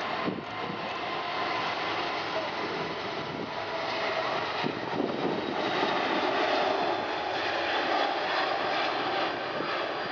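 Airbus A380's four turbofan engines at takeoff power as the airliner rolls, lifts off and climbs: a steady rushing jet noise that grows louder around the middle as the aircraft passes.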